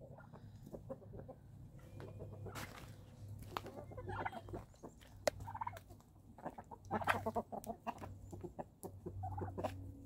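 A flock of chickens feeding, with soft scattered clucks and sharp clicks and taps throughout.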